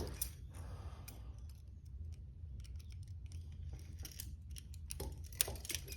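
Small scattered metal clicks and scrapes of a handcuff being picked with a single tool, with a few louder clicks near the middle and near the end.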